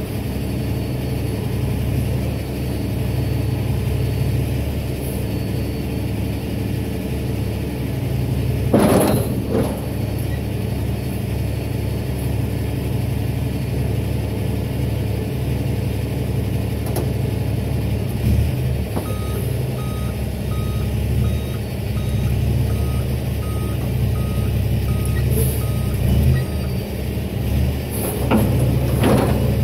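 Kenworth T800 diesel truck engine running steadily while its hydraulic tilt bed raises to drop a lumber load. A backup-style alarm beeps evenly, about one and a half beeps a second, for several seconds past the middle, and two short rushing sounds come about nine seconds in and near the end.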